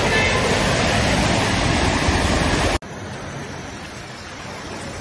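Loud rush and splash of floodwater as a Toyota RAV4 drives through a flooded street, pushing up a wave of spray. Nearly three seconds in it cuts off suddenly, and a quieter, steady watery hiss follows.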